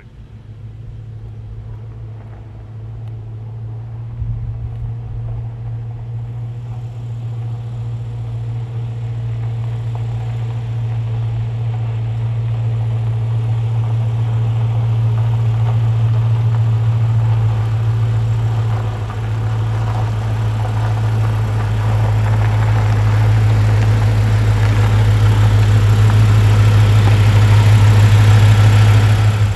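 Big-block 460 V8 of a 1977 Ford Custom 500 Police Interceptor rumbling steadily at low speed as the car rolls slowly toward the listener, growing steadily louder until it is close by.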